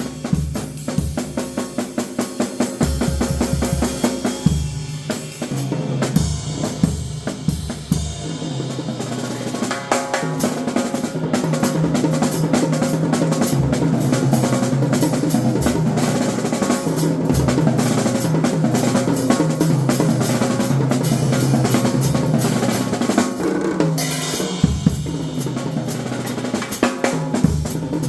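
Drum kit played solo: quick strokes on the snare and bass drum that build into a long, unbroken run of very fast strokes through the middle, breaking back into separate hits near the end.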